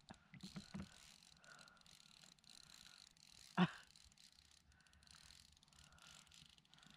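Faint handling of a fly rod, reel and line while playing a small hooked fish: a few light clicks in the first second and one sharp knock about three and a half seconds in.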